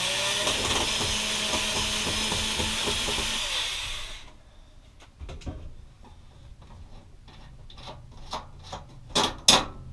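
Cordless drill running steadily on a mounting bolt for about four seconds, then stopping. Light handling clicks follow, with two sharp knocks near the end.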